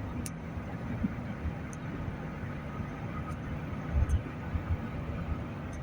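Van driving, heard from inside: a steady low road and engine rumble with a few low thumps about four seconds in.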